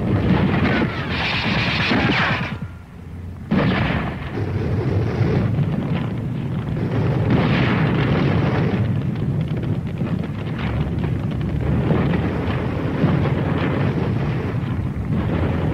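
Battle sound: a steady din of explosions and gunfire that drops away briefly about three seconds in, then comes back suddenly at full strength.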